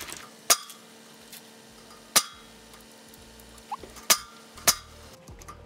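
Pneumatic nail gun firing four times at uneven intervals, each shot a sharp crack with a short metallic ring, driving nails into wooden strips fitted in a stainless-steel gate frame.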